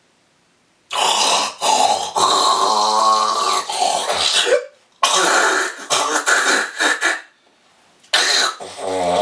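A man loudly hawking, coughing and clearing his throat in long, rough bouts: the first starts about a second in and lasts several seconds, with a brief pause before a second stretch, and another begins near the end.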